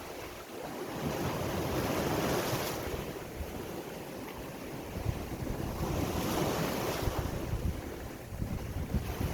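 Sea waves breaking and washing in, swelling louder about a second in and again about five seconds in, with wind rumbling on the microphone.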